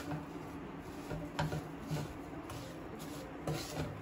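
Spatula scraping and stirring flattened millet poha through a sticky mix of grated coconut, nuts and dates syrup in a pan, in uneven rubbing strokes with a few sharper scrapes, over a low steady hum.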